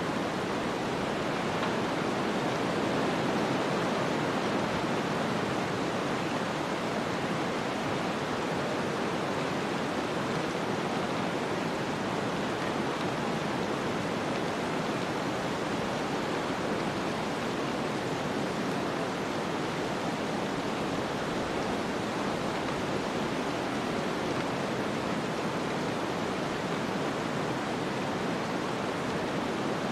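Steady snowstorm ambience: an even, rushing hiss of wind and blowing snow that holds constant, with no gusts or separate sounds.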